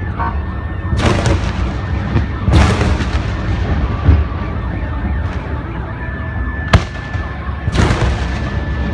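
Aerial fireworks bursting: deep booms with crackling shell breaks, three big crackling bursts and one sharp crack. A thin steady high tone sounds at the start and again in the last few seconds.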